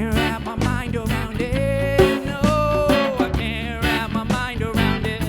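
Live band playing an instrumental passage over a steady bass and drum beat, with a lead line that holds one long note about midway.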